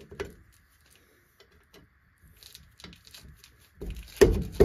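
Steel combination wrenches clicking and knocking on a brake caliper's lower guide bolt and its lock nut as it is loosened, with small scattered ticks and two loud metal knocks near the end.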